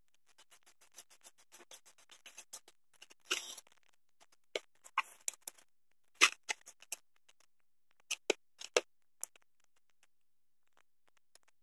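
A stick stirring grey J-B Weld steel-reinforced epoxy on a plastic lid. First come faint scratchy scrapes, then one louder scrape about three seconds in, then a scattering of sharp clicks and taps of the stick against the lid.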